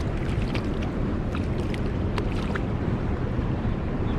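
Creek water rushing steadily, with a scatter of short sharp clicks and splashes in the first couple of seconds.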